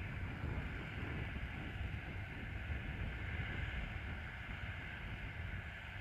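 Wind rumbling on the microphone over the steady, distant running of a Massey Ferguson 6480 tractor's diesel engine as it pulls a plough.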